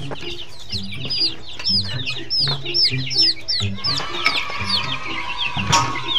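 A flock of chicks peeping: a continuous stream of short, high, falling peeps, several a second, with a brief sharp sound near the end.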